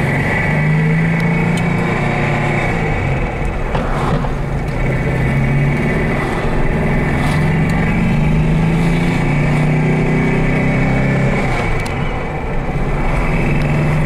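Air-cooled flat-four engine of a 1965 Porsche 356 C pulling hard through the gears, heard from inside the cabin; its pitch rises, then drops back at gear changes about three seconds in and again near twelve seconds, over steady road noise.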